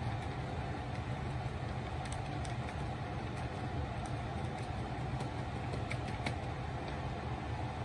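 Steady low mechanical hum, with a few faint taps as a paintbrush dabs paint onto paper.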